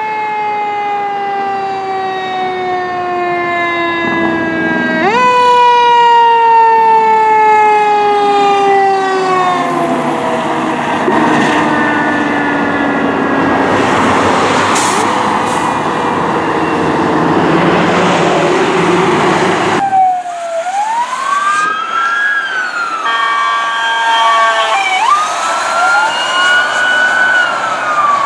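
Fire engine siren in a long, slowly falling wail that jumps back up about five seconds in and falls again, followed by the loud noise of the truck passing. After a sudden change about twenty seconds in, a second emergency vehicle's siren cycles quickly up and down, with a rapid yelp in the middle.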